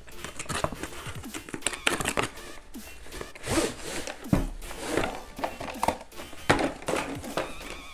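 Handling noise from a long cardboard box as a tripod in its canvas carry bag is slid out: rustling, scraping and scattered knocks, with a low thump about halfway through.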